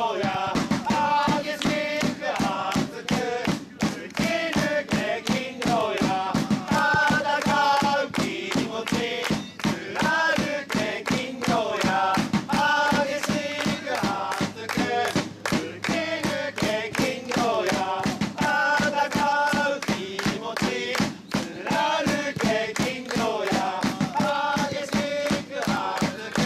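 Group of football supporters singing a player chant in unison over a steady beat.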